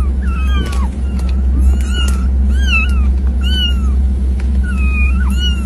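A litter of kittens mewing over and over, about a dozen short, high mews, some overlapping, over a steady low hum.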